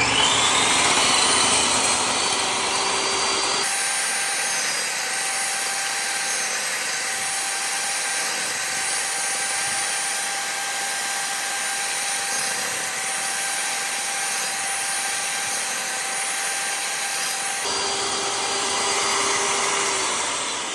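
Jobsite table saw running steadily while a small wood block is fed along the fence to cut a quarter-inch rebate. The sound changes abruptly about four seconds in and again near the end.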